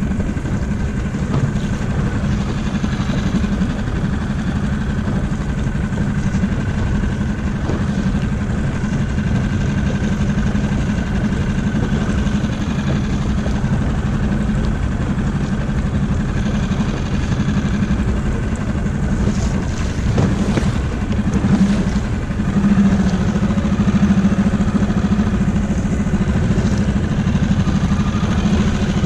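Small outboard motor driving an inflatable dinghy, running steadily and picking up a little about three-quarters of the way through.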